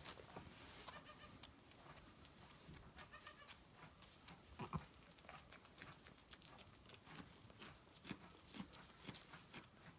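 Goats bleating faintly twice, with small rustles and one soft knock about five seconds in.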